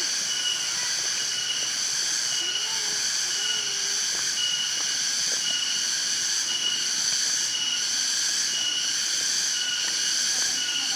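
Chorus of forest cicadas: a steady shrill drone, with one high note pulsing on and off in an even rhythm.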